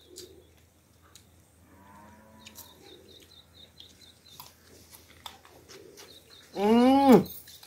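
One short cattle moo about two-thirds of the way through, its pitch arching up and then falling. Before it there are only faint clicks and a thin, high chirp repeating about three times a second.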